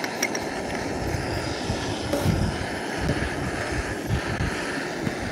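Canister gas camp stove burner running with a steady rushing roar under a kettle, with gusty wind rumbling on the microphone.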